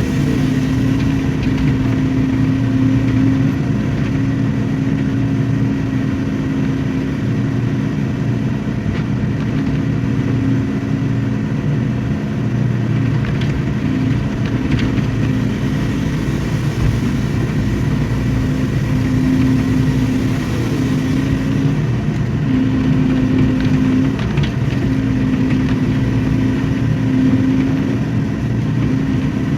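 Excavator's diesel engine running steadily under work, with a steady hum that wavers and dips slightly now and then.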